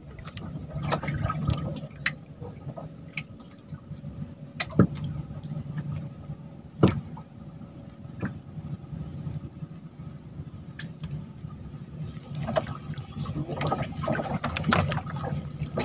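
Water sloshing and lapping, with scattered light clicks and knocks; two louder knocks come about five and seven seconds in.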